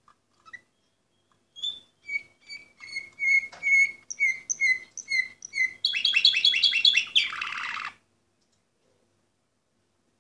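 Orpheus-breed canary singing: a phrase of clear repeated notes, two to three a second, then a fast trill and a buzzy rolled phrase. A few faint clicks come before the song starts about a second and a half in.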